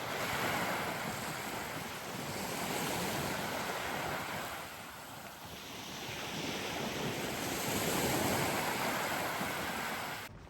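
Sea waves washing ashore, a steady rushing surf that swells, eases off about halfway through, then builds again, with some wind on the microphone.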